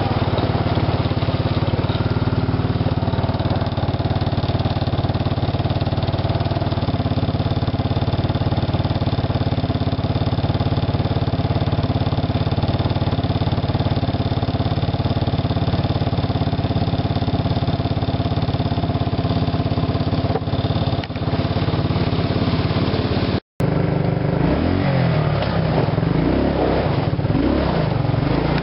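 Suzuki King Quad 300 ATV's engine running steadily under way. After a brief dropout near the end, the engine note rises and falls as the revs change.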